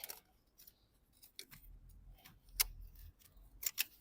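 Scattered light clicks and ticks of small tools and plastic or metal parts being handled in a car's engine bay, with a faint low rumble in the middle.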